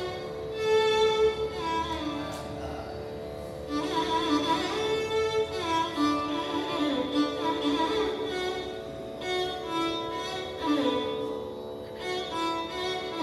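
Carnatic violin playing gliding, ornamented phrases in raga Mohana over a steady drone from an electronic tanpura. The mridangam is not playing.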